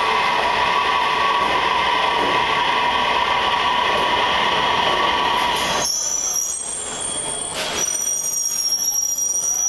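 Beijing Subway Line 2 train running into the platform and slowing, a steady loud rumble and hum of the moving cars. About six seconds in the rumble drops away suddenly and high thin squeals from the braking train take over as it draws to a stop.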